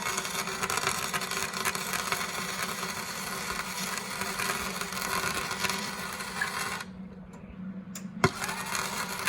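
Gasless flux-core MIG welder arc crackling and hissing on a BMW E36 differential, run hot at about 177 amps: one long weld of about seven seconds, then it stops and a second short burst starts near the end. A steady low hum runs underneath.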